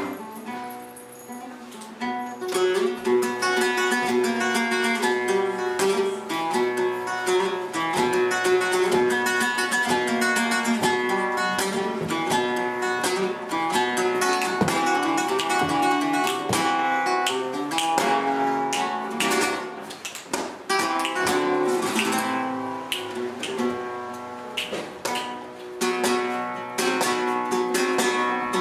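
Flamenco guitar playing: quick runs of plucked notes broken by sharp strummed strokes, briefly quieter about a second in before picking up again.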